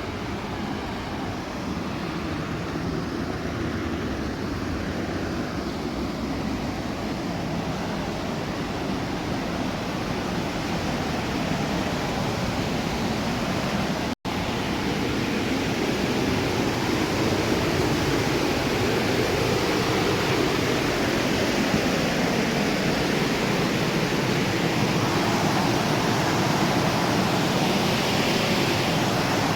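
Steady rushing of a mountain river mixed with wind buffeting the microphone, briefly cutting out about halfway.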